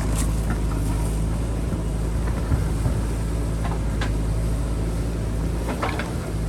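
JCB backhoe loader's diesel engine running steadily, with a few light knocks.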